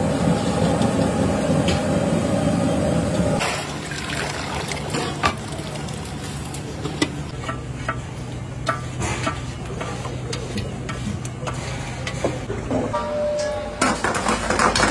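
A large aluminium pot boiling hard on a gas burner gives a loud steady rush for the first few seconds, then stops abruptly. Next a hand scrapes thick spinach purée out of a steel pot, with scattered knocks of metal on metal. Near the end oil sizzles as chopped garlic fries in a steel pan.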